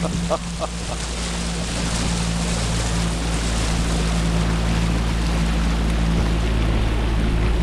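A boat's engine running steadily, with wind and water noise over it.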